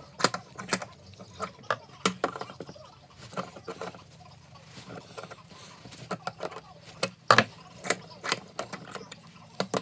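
Irregular clicks and light knocks of hand tools and metal parts being handled during a car door check repair, the loudest knock about seven seconds in.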